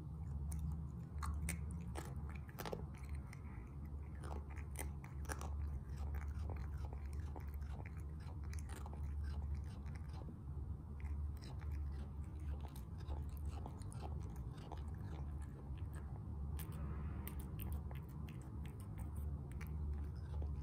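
A Munchkin cat chewing and crunching dry kibble from a bowl, close up: a run of irregular, crisp crunches and clicks over a steady low hum.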